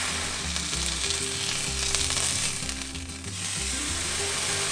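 Marinated chicken breast sizzling steadily in hot oil in a grill pan.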